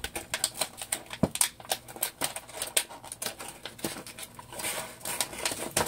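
Clear plastic blister packaging being handled and pried apart, crackling and clicking irregularly.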